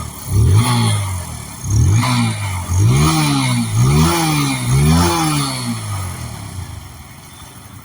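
TVS Apache RTR 160 2V's single-cylinder engine revved in a series of quick throttle blips, about half a dozen, the pitch rising and falling each time, then fading away over the last couple of seconds.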